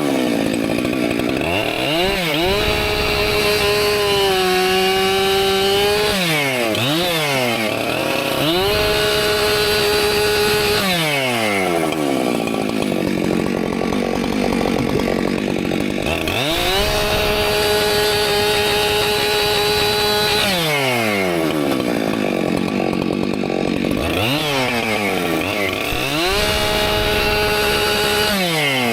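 Husqvarna professional chainsaw bucking firewood: the two-stroke engine is held at full throttle, its pitch sagging as the chain pulls through the wood, then easing off and revving back up between cuts, about four times over.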